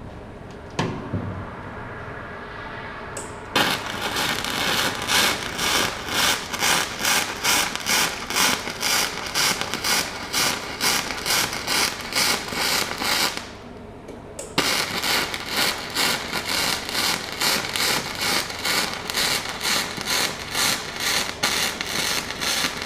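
Flux-core MIG welding arc crackling from a Magmate 150 MIG welder, in even pulses about three a second. It starts about three and a half seconds in and pauses briefly for about a second in the middle before starting again.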